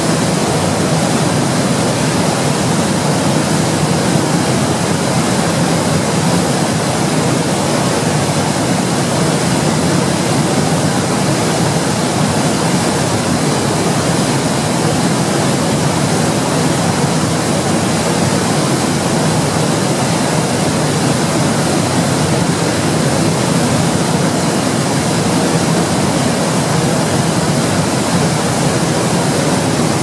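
An 18-metre waterfall pouring through a narrow rock chute into a plunge pool: a loud, even rush of falling water with no change in level.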